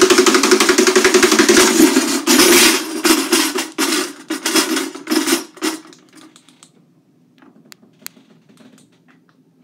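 A loud, rapid, even rattle that breaks into stuttering bursts about two seconds in and stops about six seconds in, leaving a few faint clicks.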